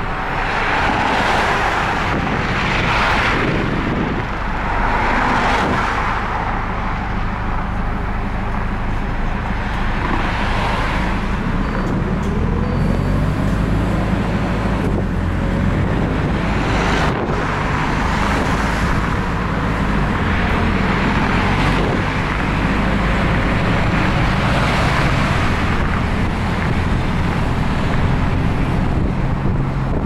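Bus heard from inside while driving: the engine runs under steady road and tyre noise, with swells of passing traffic. About halfway through, the engine note rises as the bus picks up speed.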